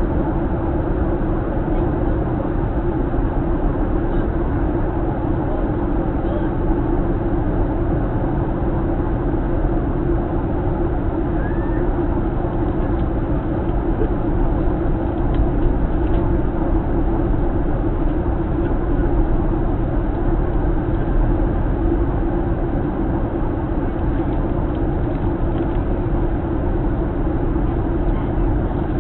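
Steady cabin roar inside a Boeing 737-900 airliner: the constant drone of its CFM56 turbofan engines and rushing air, even and unchanging throughout.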